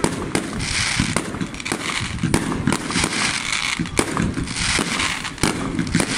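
Fireworks display: a steady run of sharp bangs from bursting aerial shells, two or three a second, over a continuous hiss.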